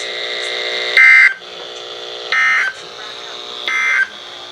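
NOAA Weather Radio SAME end-of-message data bursts: three short, harsh digital screeches about a second and a half apart, marking the end of the severe thunderstorm warning, heard through a weather radio's speaker over a steady buzzing hum.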